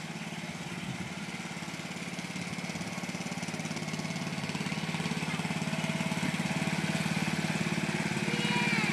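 Riding lawn mower's small engine running steadily with a fast, even pulse, growing louder as the mower drives closer.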